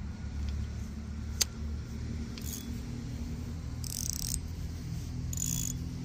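Spinning reel with braided line: a sharp click about one and a half seconds in, then three short hissing rushes of braid running off the open spool under a fingertip as the lure sinks. A steady low rumble runs underneath.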